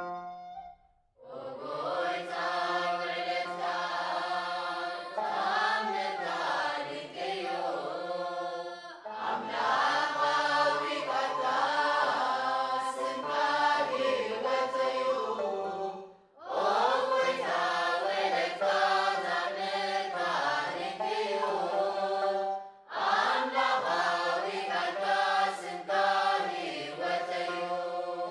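Church choir singing a Tigrinya Orthodox Lent hymn (mezmur), in four sung phrases separated by short breaths.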